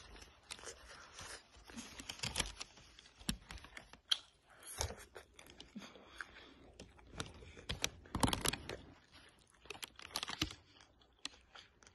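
Eating takeout close to the microphone: a plastic fork clicking and scraping in a plastic container, plastic crinkling, and chewing of crispy food, in irregular clicks and crackles.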